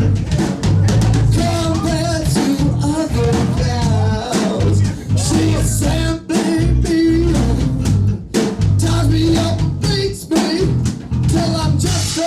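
Music with a full drum kit playing a kick-and-snare beat under a wavering pitched melodic line.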